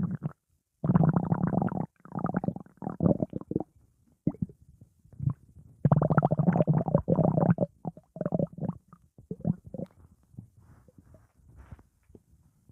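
Stomach growling and gurgling in irregular spurts. There are two long, loud gurgling rumbles, about a second in and again about six seconds in, with shorter gurgles between them, and the gurgles fade to faint, scattered ones near the end.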